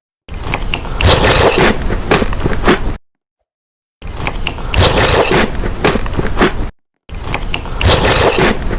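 Crunchy food being bitten and chewed close to the microphone, a dense crackling crunch. It comes in three stretches of two to three seconds each, each starting and stopping abruptly, with dead silence between.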